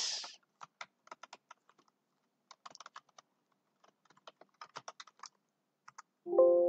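Computer keyboard typing in short runs of keystrokes. Near the end a short Windows alert chime of several tones sounds and fades; it is typical of the warning that pops up when a file name extension is changed.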